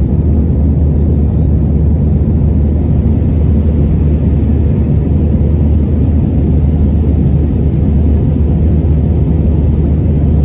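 Steady cabin noise of an Airbus A319 in flight, heard from inside the passenger cabin: a constant deep engine drone under rushing airflow, with no change in pitch or level.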